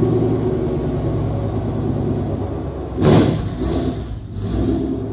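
A 2015 Mustang GT's 5.0 L Coyote V8 on E85, through an MBRP Street catback exhaust, running steadily. About three seconds in comes a single quick throttle blip, a sharp loud rise that falls back to idle.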